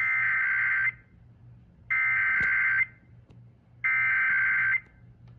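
Emergency Alert System SAME header data bursts: three identical buzzy electronic tone bursts, each about a second long and a second apart. They are the digital code that opens a required weekly test alert.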